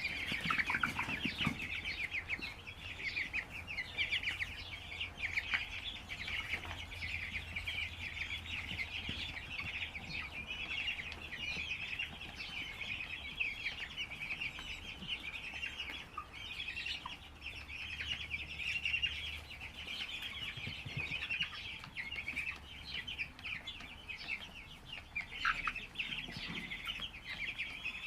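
A shed full of broiler chickens calling all at once: a dense, continuous chorus of many overlapping high peeps and clucks.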